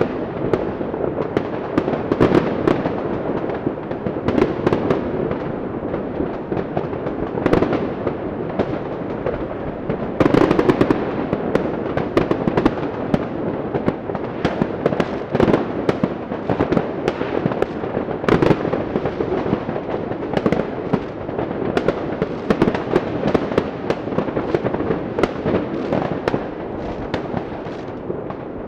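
Fireworks and firecrackers going off in a continuous barrage: many overlapping bangs and crackles with no pause.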